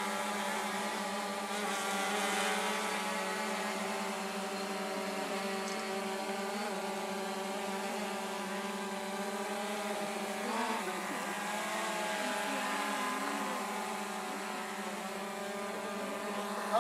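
Quadcopter drone hovering overhead, its electric rotors giving a steady buzzing hum that holds one pitch.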